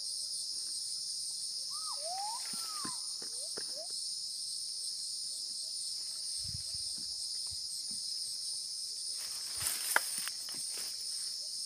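A steady, high-pitched insect chorus, with footsteps rustling through undergrowth and dry leaves. A few short rising whistled calls come about two seconds in, and a sharp crack comes near the end.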